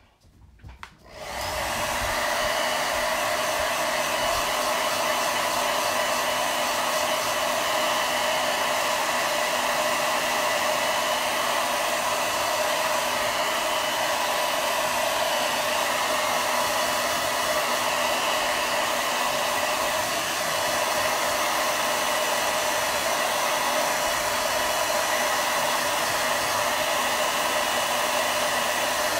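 Handheld hair dryer switching on about a second in, then running steadily, blowing air over a freshly chalked board to dry the paste.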